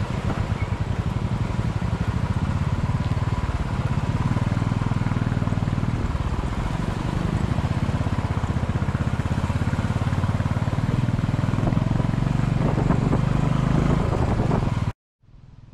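Motorcycle engine running close by, a steady rapid pulsing under a haze of wind and road noise, with the machines under way on a rough dirt road. The sound cuts off suddenly near the end and a much quieter low rumble follows.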